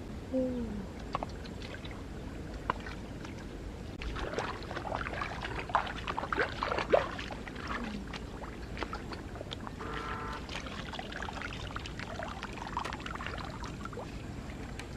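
Footsteps squelching and clicking through wet lakebed mud, busiest in the middle. There is a short falling vocal sound near the start.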